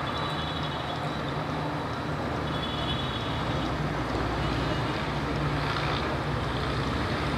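Steady low rumble of outdoor street background noise, with vehicle traffic.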